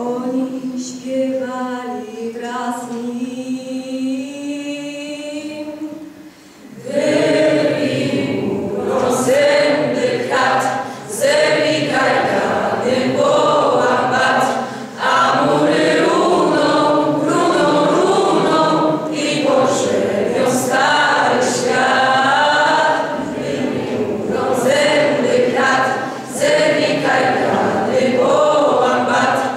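Youth choir singing unaccompanied. A single voice sings alone for the first six seconds or so, then the full choir comes in.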